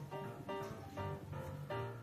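Background music: a light instrumental tune with plucked notes in a steady rhythm.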